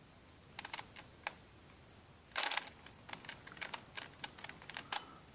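5x5x5 puzzle cube being turned by hand: its plastic layers click as they rotate. A few clicks come about half a second and a second in, a louder rasping turn about two and a half seconds in, then a quick run of clicks.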